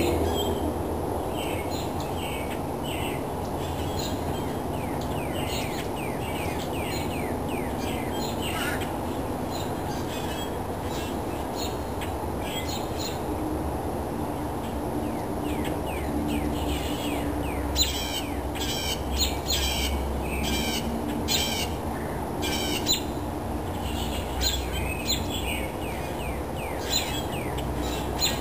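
Morning chorus of songbirds: many short falling chirps from several birds. In the second half a nearer bird gives a run of louder, sharp repeated calls. A steady low rumble runs underneath.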